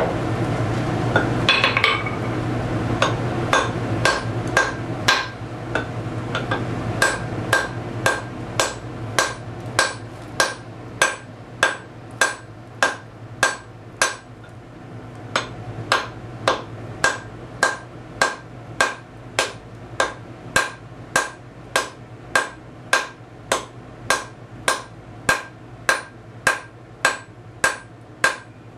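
A 2.5-pound hand sledge hammering the red-hot end of a one-inch steel bar on an anvil. The blows are evenly paced, a little under two a second, and each one gives a short ring from the anvil. A steady low hum runs underneath.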